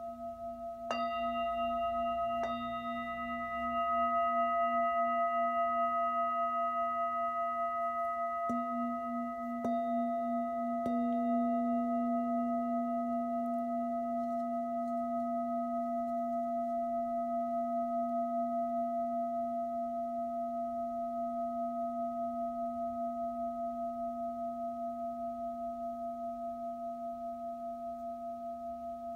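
Hand-hammered Tibetan Jambati singing bowl, 18 cm across, resting on an open palm, struck five times with a mallet in the first eleven seconds and left to ring. Several steady tones, deep to high, sound together with a slow pulsing wobble and fade gradually.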